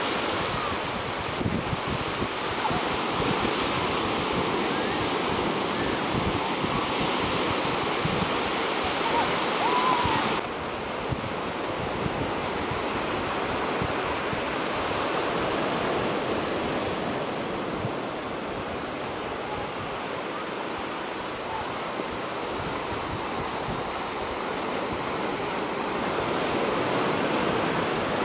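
Surf washing onto a sandy beach, a steady rush of breaking waves with wind buffeting the microphone. About ten seconds in, the high hiss drops away abruptly.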